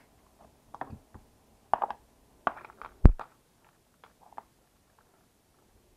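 Small clicks and knocks of RC shock parts being handled, as metal pivot balls are squeezed with pliers into plastic shock rod ends. About three seconds in comes one sharp, loud knock as a shock is set down on the workbench, followed by a few faint ticks.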